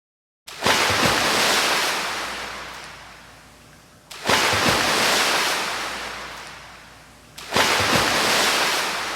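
A rushing, surf-like noise that comes three times about three and a half seconds apart. Each starts suddenly with a low thump and fades over about three seconds. The swells are almost identical, like a repeated sound effect.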